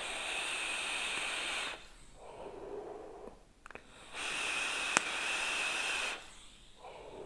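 Two long draws, about two seconds each, on a vape mod with a rebuildable dripping atomizer: air hissing through the atomizer with a steady high whistle, each followed by a softer breath as the vapour is blown out. A sharp click falls in the middle of the second draw.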